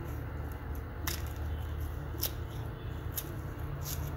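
Garlic bulbs being pulled apart by hand into cloves, the dry papery skins rustling, with a few short sharp crackles, over a steady low hum.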